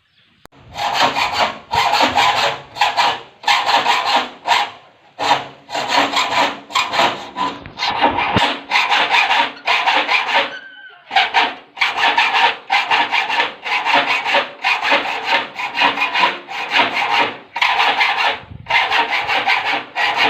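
Rhythmic back-and-forth strokes of a hand tool scraping over the homemade gate latch as it is worked smooth, about two strokes a second, with a short pause about halfway.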